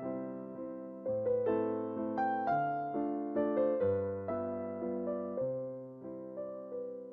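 Background music: a gentle piano piece with chords and melody notes struck every half second or so, each decaying before the next.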